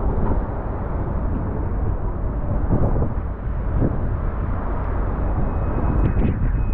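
Loud steady low rumbling noise with no clear pitch.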